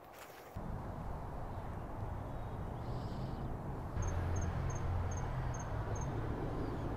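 Low steady outdoor rumble, with six short, high-pitched insect chirps spaced about two and a half a second in the second half.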